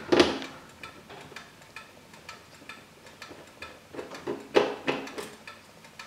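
Light, irregular clicking and ticking of a small screwdriver working screws out of a laptop's plastic base panel, with a few louder clicks among them.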